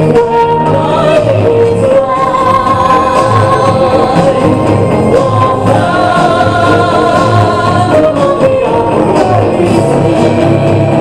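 Music with singing, played loudly through loudspeakers with a steady pulsing bass beat.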